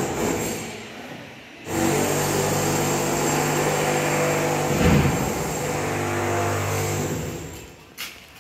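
An engine running steadily with a low, even hum, starting about two seconds in and dying away a second before the end, with a short louder surge midway.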